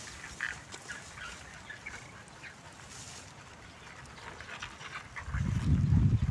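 Short, scattered calls of farm fowl, with a loud low rumble coming in about five seconds in.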